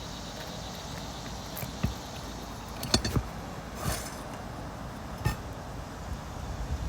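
Asphalt roof shingles being lifted and handled while they are checked for nail pops: a few sharp clicks and snaps, about a second apart, over a steady background.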